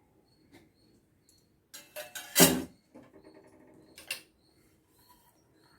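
Spoon knocking and scraping in a metal cooking pan as the sautéed thoothuvalai leaves are tipped in with the roasting spices, the loudest knock about two and a half seconds in, then softer scraping and a last click.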